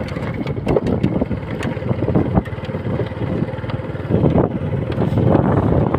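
A small vehicle engine running while driving over a rough, freshly built dirt road, with frequent knocks and rattles from the bumps and wind on the microphone.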